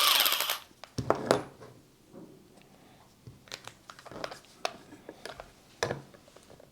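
Handling noises: scattered sharp clicks and light knocks of small metal and plastic parts, such as a screw and socket, being handled and set up for a cordless ratchet. There is a short rustle at the very start.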